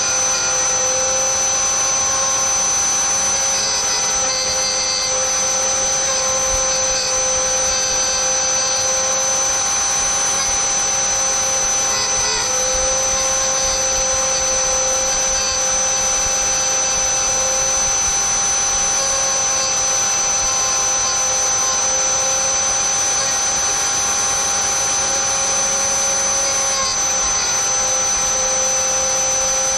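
Dremel rotary tool in a drill-press stand, used as a mini milling machine, running with a steady high whine while its bit cuts a slot in a plastic sheet; the pitch wavers slightly as the cut loads the motor.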